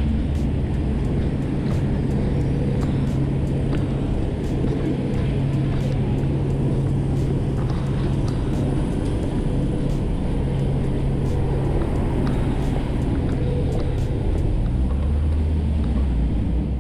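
City street traffic: a steady low rumble of car engines.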